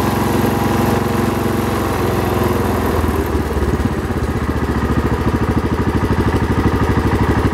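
Kohler K321 single-cylinder engine of a 1978 Wheel Horse C-141 tractor running, then slowing about three seconds in to a steady idle with evenly spaced firing pulses. It idles pretty good.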